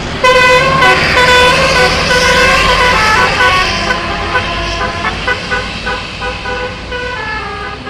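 Basuri bus's telolet multi-tone air horn playing its tune. A long loud chord of held notes shifts pitch partway through, then gives way to a run of short toots near the end.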